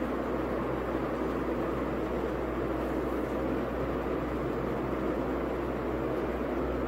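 Steady rushing background noise with a constant low hum underneath, unchanging throughout.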